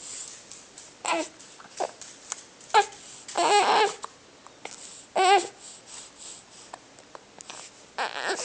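A small child crying in short, broken-up bursts interrupted by hiccups: brief whimpering cries, a longer wavering wail about three and a half seconds in, another shorter wavering one around five seconds, and short sharp catches between them.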